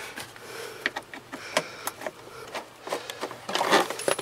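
Hand tool backing out the 10 mm screw that holds a plastic heater box under a truck's dash: irregular clicks and scrapes of tool, screw and plastic, with a longer scraping rasp near the end.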